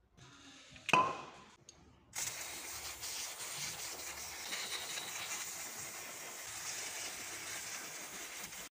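One sharp metallic clink about a second in, as the scooter's removed oil-drain plug and strainer screen are handled, then a steady hiss from about two seconds on that stops abruptly.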